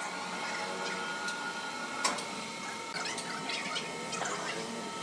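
A steady machine hum from sawmill machinery, with scattered knocks and clicks as the freshly sawn wood is handled; the sharpest knock comes about two seconds in.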